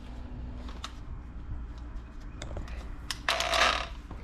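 Light clicks and rattles as a cordless angle grinder is handled without running, with a short scraping rustle about three and a half seconds in, over a steady low rumble.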